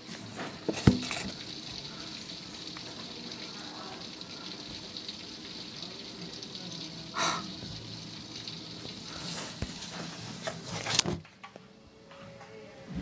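Heavy storm rain falling with a steady hiss, with a few sharp knocks. The hiss cuts off suddenly about eleven seconds in.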